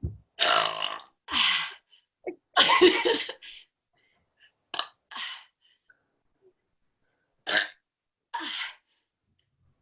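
A woman forcing out a string of short burps, about seven, with silent gaps between them; the first few are the loudest.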